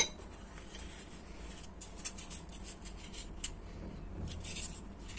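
Light clicks and rustling of a plastic dumpling mould being handled and pressed shut around a filled dough circle, the clicks scattered and coming most in the middle of the stretch.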